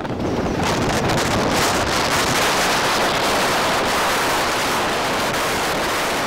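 Strong storm wind blowing across the microphone, a steady loud rush of noise.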